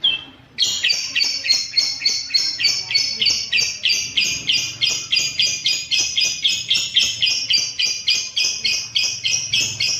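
Lovebird giving a long unbroken run of rapid, high, chattering calls, about four notes a second, after a single short chirp at the start: the extended song that lovebird keepers call ngekek.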